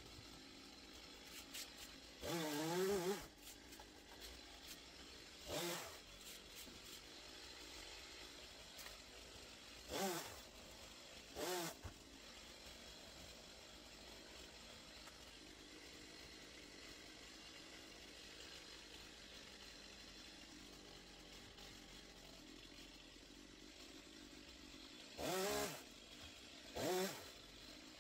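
Two-stroke chainsaw revved in short bursts, about six times, each rev rising and falling in pitch within a second.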